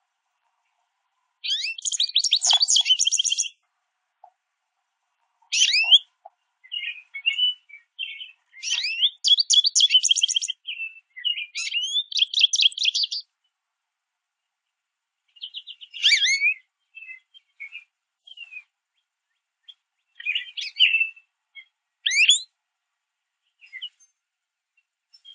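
American goldfinches calling: two runs of rapid, high twittering, each a couple of seconds or more, broken up by scattered single rising call notes and short pauses.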